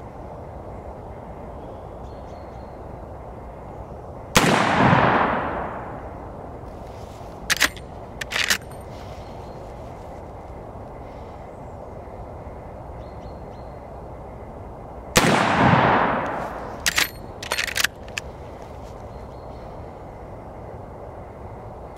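Two shots from a Marlin 1895 SBL lever-action rifle in .45-70 Government, about eleven seconds apart, each a sharp report with an echo that dies away over about a second. A couple of seconds after each shot come two or three short metallic clacks: the lever being worked to eject the spent case and chamber the next round.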